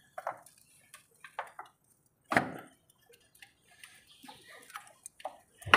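Scattered light clicks and knocks at an uneven pace, with a louder knock about two and a half seconds in and another at the very end.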